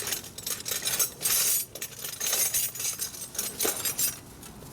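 Small metal parts and hand tools clinking and jangling as they are handled, with a string of sharp clicks and short rattles.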